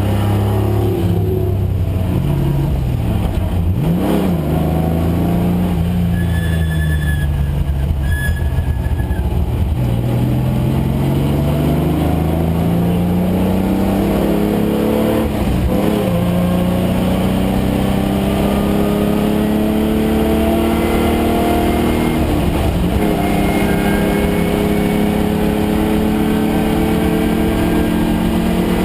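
Datsun 510 wagon's swapped-in 3.0-litre Nissan VG30 V6 running hard on track, heard from inside the car. The revs fall in the first few seconds under braking, then climb and fall repeatedly, with quick upshifts about halfway through and again about three-quarters of the way in.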